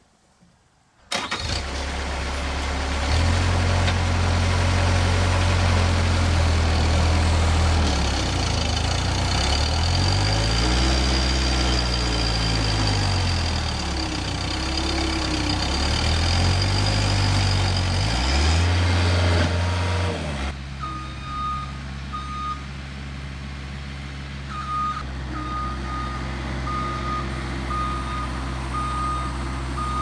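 Bobcat S175 skid-steer loader's diesel engine running hard, its revs rising and falling as the machine works itself through soft, loose dirt where it seemed stuck. About two-thirds of the way in the engine drops to a lower level and the back-up alarm beeps steadily as the loader reverses.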